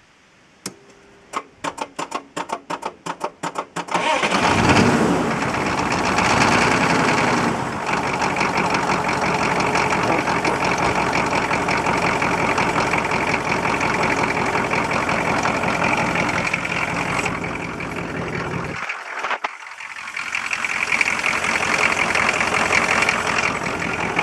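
1986 Chevy K20's diesel V8 cranked by the starter, about four or five turns a second, then catching and running after about four seconds, with a brief change in speed as it settles into a steady run. The owner suspects a blown head gasket or a hole in a piston.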